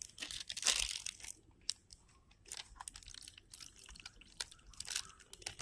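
Plastic packaging crinkling and crackling in scattered short bursts of crackles and clicks as it is handled and opened by hand.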